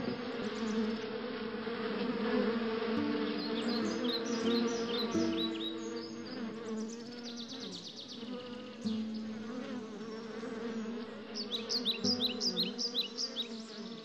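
Honeybees buzzing in a steady hum around the entrance of an open-roofed wooden hive, with rows of quick high chirps over it that are busiest near the end.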